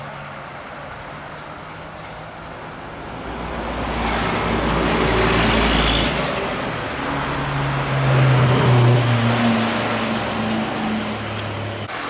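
Tour coach driving past. Engine and tyre noise builds over a few seconds and peaks as it goes by. A low, steady engine drone then carries on as it pulls away.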